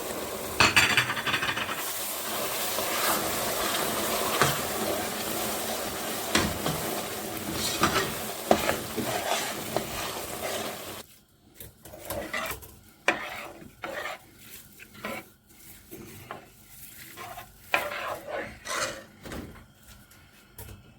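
A spoon stirs and scrapes in a pot of honey and toasted sesame sizzling over the heat. A little past halfway the sizzling cuts off abruptly, leaving separate scrapes and knocks of the spoon against the pot.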